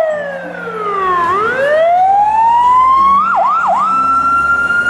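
Fire engine siren wailing: a slow falling sweep, then a rise, two quick dips about three and a half seconds in, and a high steady tone held near the end.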